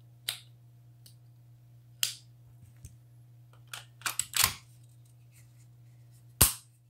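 Metal clicks and clacks of an RIA VR82 shotgun's upper and lower receivers being handled and fitted together: a few single clicks, a quick cluster of clacks a little past halfway, and one sharp, loud click near the end.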